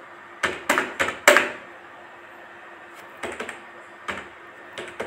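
Computer keyboard keys being pressed: a quick run of four sharp taps in the first second and a half, then a few scattered single taps later.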